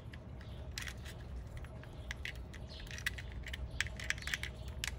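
Small plastic clicks and taps from a Zhu Zhu Pet toy's hard plastic body being handled and pressed together with its plush head, with brief rustles of the fur. The clicks come singly and irregularly, several a second at times.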